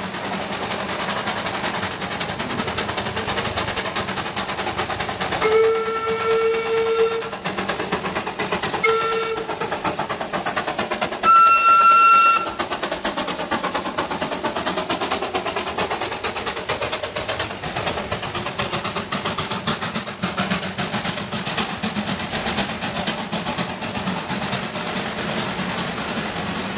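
Darjeeling Himalayan Railway B-class steam locomotive's whistle blowing three times in the first half: a long blast, a short one, then a louder, shriller one. A steady hiss of heavy rain and escaping steam runs underneath.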